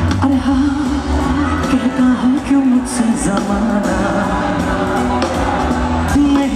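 Live band playing on stage: a singer holding long, wavering notes over bass, guitar and drums, with sharp drum and cymbal strokes.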